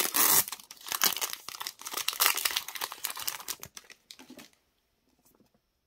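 Foil wrapper of a Pokémon card booster pack crinkling and tearing as it is ripped open by hand. The crinkling is dense for about three and a half seconds, thins to a few light rustles, and stops about four and a half seconds in.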